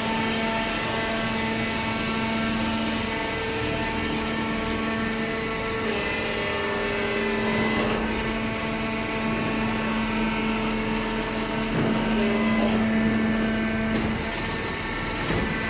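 Automatic hydraulic baler running: a steady machine hum made of several held tones, which shift slightly in pitch a few times.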